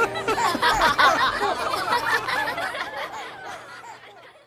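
Several voices, children and adults, laughing and giggling together, fading out toward the end.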